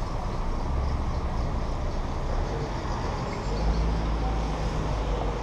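Motorcycle engine running steadily with a low hum that grows louder about three and a half seconds in, over the noise of street traffic.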